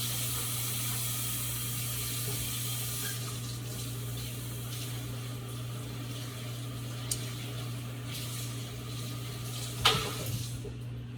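Kitchen tap running into the sink while a bowl and fork are rinsed under it, with a brief clatter near the end.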